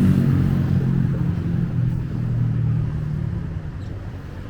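A road vehicle's engine going past, its low engine note fading steadily as it moves away.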